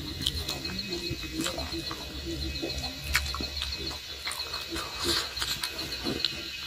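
Chewing and mouth sounds of someone eating oily pig head skin: irregular clicks and smacks at no steady rhythm.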